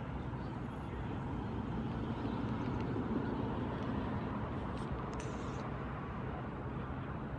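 Road traffic: a steady rumble of cars, swelling a little between about two and four seconds in.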